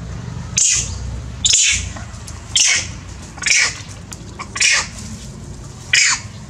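Young long-tailed macaque screaming in distress: six short, shrill cries at roughly one-second intervals, each sliding down in pitch.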